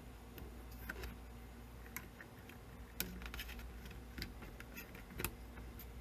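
Scattered small clicks and taps as a rubber drive belt is worked onto the flywheel of an opened cassette recorder, fingers knocking against its plastic case and metal transport parts. The sharpest clicks come about three seconds in and again a little after five.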